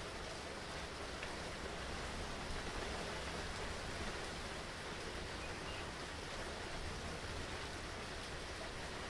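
Steady rain falling in a storm: an even, unbroken hiss with no single drops or thunder standing out.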